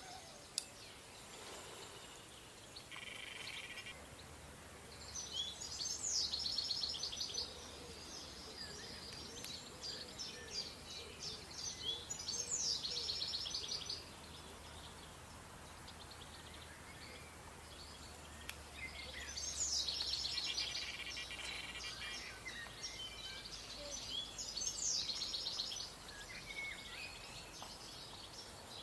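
Songbirds singing in repeated bursts of fast, high trilled phrases every few seconds, over a steady background hiss. A single sharp click sounds about half a second in.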